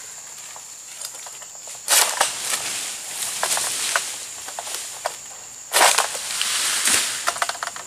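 An oil palm harvesting sickle (egrek) on a long pole cutting into the palm crown: two sudden loud tearing snaps, about two seconds in and again about six seconds in, each followed by a second or more of crackling and rustling fronds and fibre.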